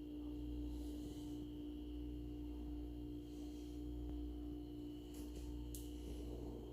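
Steady low hum with a constant steady tone above it, and a few faint clicks about five to six seconds in: room tone from an appliance or electrical device.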